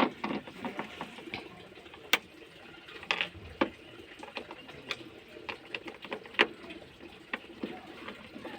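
Irregular light clicks and taps, with a few louder knocks, of a TV and its fittings being handled.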